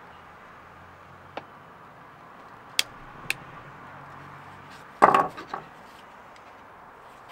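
Snap-ring pliers and a metal clip ring clicking sharply a few times as the ring is worked off a CV joint. About five seconds in, a short clatter of knocks as the pliers are set down on wooden decking.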